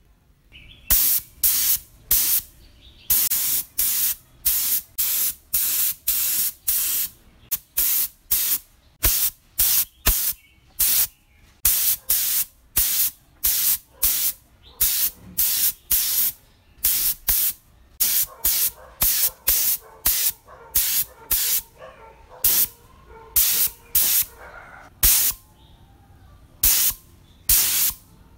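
Gravity-feed paint spray gun firing short bursts of hissing spray, roughly one to two a second with brief gaps as the trigger is pulled and released.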